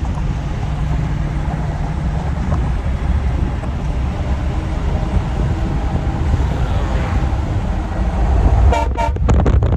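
Hornblaster Outlaw 232 three-trumpet air train horn blown on a moving pickup, very loud, over the truck's running noise. A few sharp clicks near the end.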